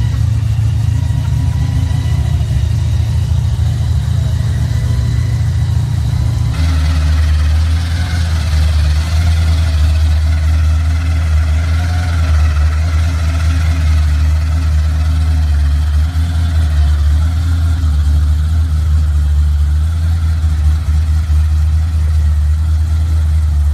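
Supercharged engine of a box Chevy with a blower through the hood, idling with a steady deep rumble. Its note drops deeper about six and a half seconds in.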